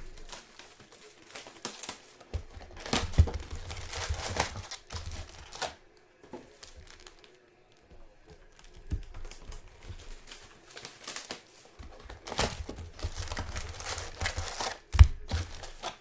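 Trading card pack wrappers crinkling and tearing open, with cards being handled, in two spells of dense crackling and light knocks; a sharp knock comes just before the end.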